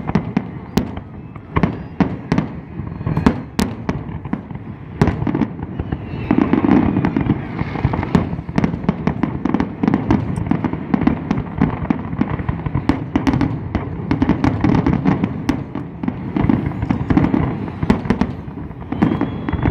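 Fireworks exploding in a run of sharp bangs and cracks. About six seconds in, the shots become dense and nearly continuous.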